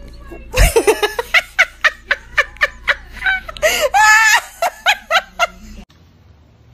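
A person laughing hard in quick bursts, with a longer, higher laugh about four seconds in. A low thump about half a second in, as the laughing starts.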